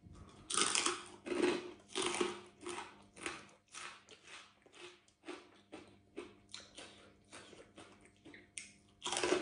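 Close-up crunchy chewing of crispy deep-fried pork belly crackling, about two to three crunches a second. The crunches are loudest in the first couple of seconds, then softer, with one more loud crunch near the end.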